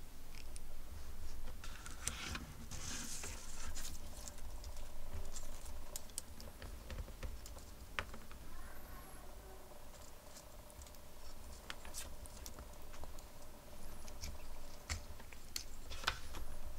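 Light scattered taps, scuffs and rustles of a cat pawing and nosing a plush fried-shrimp cat toy on a hard desktop, with a faint steady hum in the second half.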